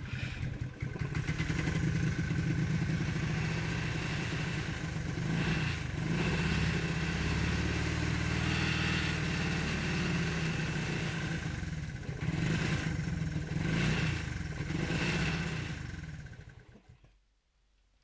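1972 Honda CT90's small single-cylinder four-stroke engine running on its first start after being revived from non-running, revved up several times. It dies away near the end.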